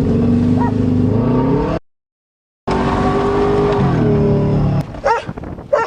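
Subaru Legacy engine running steadily while driving. The sound drops out completely for about a second, then the engine comes back and its revs fall off about four seconds in before it stops, followed by a couple of short yelps near the end.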